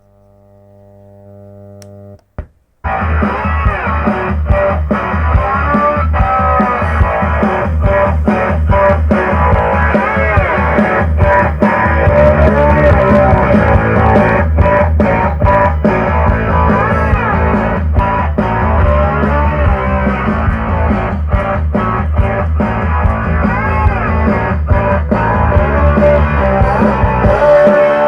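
A low hum fades in for about two seconds, then a click, and rock music with guitar and heavy bass starts, played through a homemade transistor power amplifier built on TIP35C and TIP3055 output transistors.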